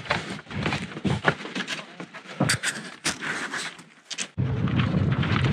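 Wind buffeting the microphone. It drops away for about three seconds in the middle and comes back suddenly near the end. Through it come scattered clicks and scrapes of footsteps and gear on rock.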